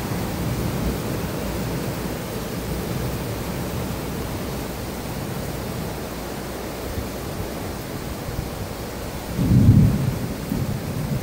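Heavy rain pouring steadily on a screened porch enclosure and the foliage around it, a dense, even hiss. About nine and a half seconds in, a low rumble of thunder swells up and is the loudest sound.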